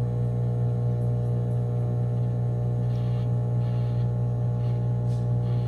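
Microwave oven running, with a loud, steady electrical hum, heating bars of Ivory soap.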